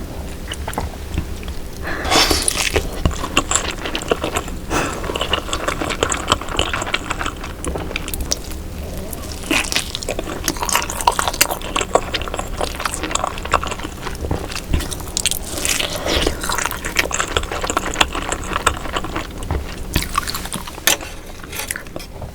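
Close-miked chewing of baby octopus full of roe, with a steady run of small wet clicks, smacks and squishes as the chewy flesh is bitten and chewed, and denser, louder stretches about two seconds in and again past the middle.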